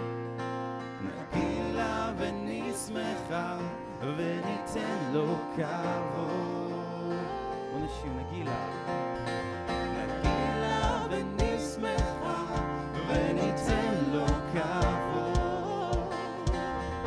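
Live worship band playing: strummed acoustic guitar, electric bass and an electronic drum kit, with a sung melody over it. About ten seconds in, a steady kick-drum beat comes in, about two hits a second.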